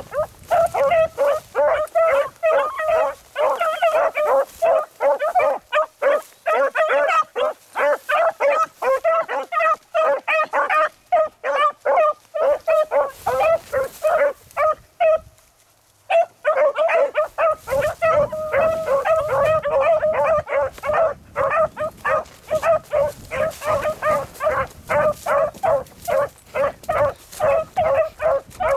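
A pack of hunting beagles giving tongue in full cry while driving a track, with rapid, overlapping barks and bays from several dogs. The calling breaks off for about a second midway, then picks up again.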